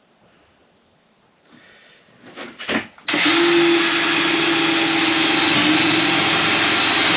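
Battery-powered power tool motor starting about three seconds in and running steadily at one pitch for about five seconds, loud, with a little handling and clatter just before it.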